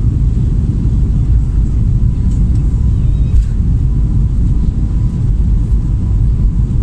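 Airbus A320neo during its takeoff run, heard inside the passenger cabin: the engines and the runway roll make a loud, steady low rumble, with a faint steady whine above it.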